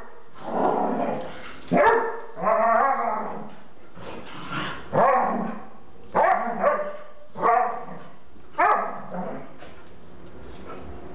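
A dachshund and an Airedale terrier play-fighting, with about nine short barks and growls in quick succession over the first nine seconds.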